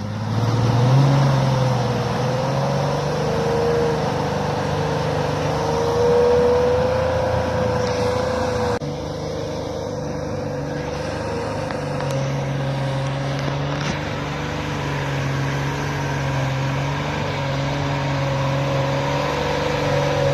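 Third-generation Toyota 4Runner's engine running at fairly steady revs under load, its pitch wavering gently up and down, with the level easing off slightly about nine seconds in.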